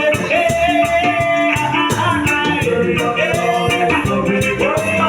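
Gospel song playing: a steady beat with a shaker, and long sung notes that slide up and are held, between lines of lyrics.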